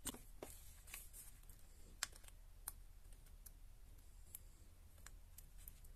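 Faint, scattered light clicks and taps from handling a slim nail-art tool and a plastic sheet of thin striping decals against long fingernails, the sharpest about two seconds in, over a steady low electrical hum.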